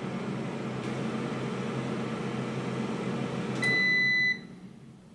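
Xiaomi Mi Smart Air Fryer running with a steady hum of its hot-air fan, then a single long beep about three and a half seconds in, its end-of-program alert, after which the running sound falls away.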